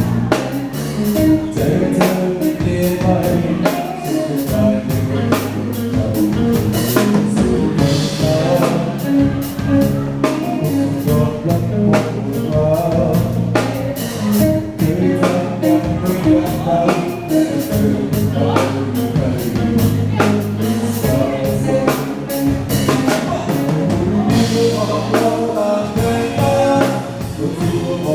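Band music with a singing voice and a drum kit keeping a steady beat.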